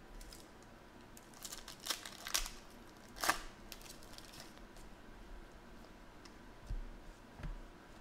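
Foil wrapper of a trading card pack being torn open by hand, a few short crinkling rips with the loudest about three seconds in, followed by quieter handling of the cards and a couple of dull knocks near the end.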